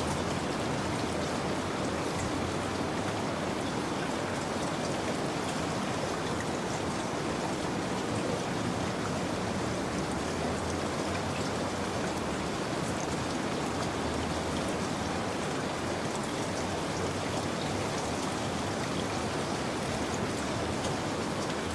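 Steady rain: an even hiss of falling rain with scattered fine drop ticks.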